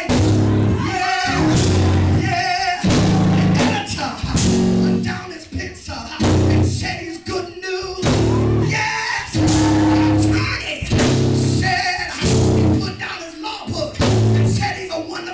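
Loud live music from a church band, a low chord pattern repeating about every second and a half, with a voice singing or calling over it.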